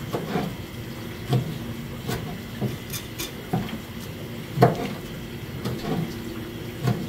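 Knife chopping through gizzard shad on a plastic cutting board: short, irregular knocks about once a second, the loudest a little past halfway.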